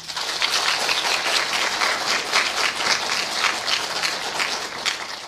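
Audience applauding, the clapping breaking out suddenly and fading away near the end.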